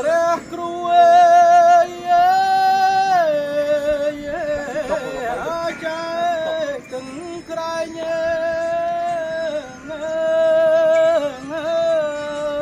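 Music: a song's opening melody, held in long wavering notes that glide from one pitch to the next.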